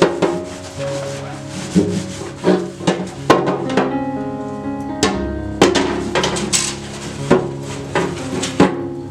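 Background music with held, sustained notes, over repeated sharp knocks, clicks and rubbing from household objects being handled and set down.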